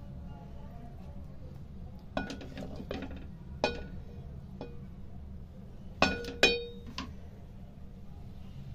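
Metal ladle clinking against a steel cooking pot while serving mutton keema, a string of sharp clinks with the loudest pair about six seconds in, over a low steady hum.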